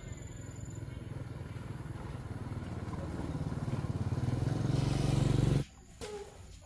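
Small engine running with a steady low hum, growing gradually louder, then cutting off suddenly about five and a half seconds in.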